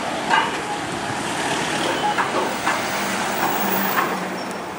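Street and traffic noise heard while riding a bicycle: a steady rushing noise with a few short rattles, and a low engine hum from motor traffic about three seconds in.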